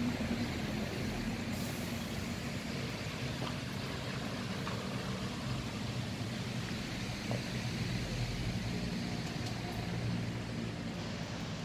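Engine of a Scania K320 IA articulated bus idling with a steady low hum.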